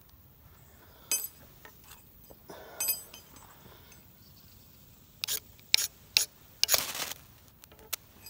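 Ferro rod being struck with a metal striker, short sharp scrapes throwing sparks onto tinder. Two separate strikes come in the first three seconds, then a quick run of about five near the end.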